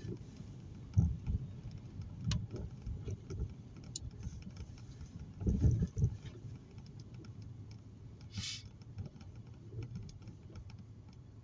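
Low rumble inside a car's cabin, with several dull thumps and knocks and a few sharp clicks, and a short hiss near the end.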